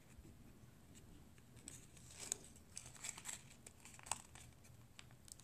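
Faint crinkling and rustling of folded origami paper as fingers pinch and crease it, with scattered small crackles.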